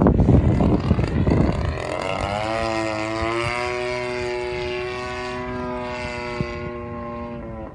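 Wind buffeting the microphone for the first second and a half, then the two-stroke gas engine of a 30cc RC aerobatic airplane is heard in flight, holding a steady pitch and slowly fading before cutting off near the end.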